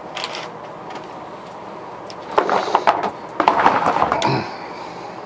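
A clear plastic storage tub full of small plastic paint bottles being handled and moved, the bottles clattering in two bursts of about a second each near the middle.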